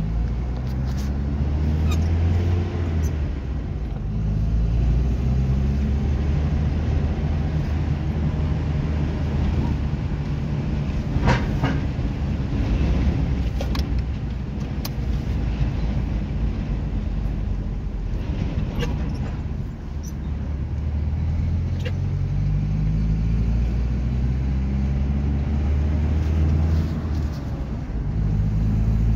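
Car engine and road noise heard from inside the cabin while driving, the engine note climbing and dropping as the car accelerates and changes gear. A single sharp click about eleven seconds in.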